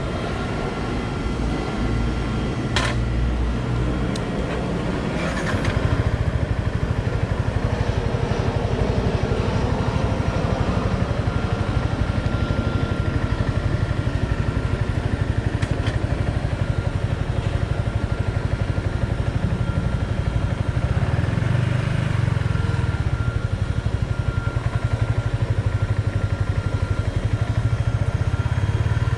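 Yamaha XSR 155's single-cylinder engine running steadily, heard from the rider's position, with a sharp click about three seconds in; the engine gets louder at about five and a half seconds and stays at that level.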